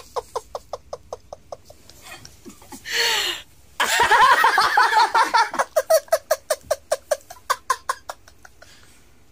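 A man laughing hard in quick, rhythmic bursts of about five a second. The laughter swells to a louder outburst about four seconds in and dies away near the end.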